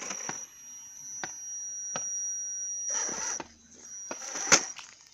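Electric drive motor of a Defender 90 RC scale crawler whining at a steady high pitch as it creeps over rocks, with scattered clicks and a sharp knock about four and a half seconds in.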